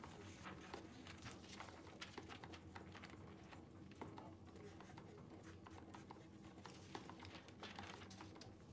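Near silence: quiet room tone with a faint steady hum and scattered faint ticks.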